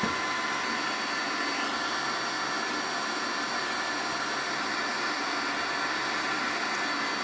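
MakerGear M2 3D printer running: a steady whir from its cooling fans with several faint steady whining tones over it.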